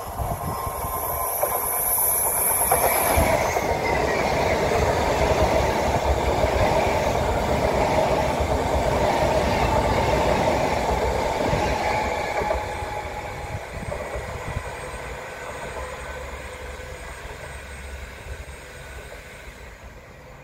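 Alstom ED250 Pendolino electric multiple-unit train passing through a station without stopping. Its running noise builds as it approaches, is loudest for about ten seconds as the carriages go by, and then fades steadily as it runs away.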